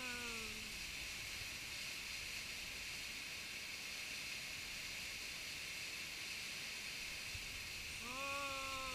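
Steady rush of a small waterfall pouring into a rock pool. A short pitched hum with a slightly falling tone fades out in the first second, and another comes about eight seconds in.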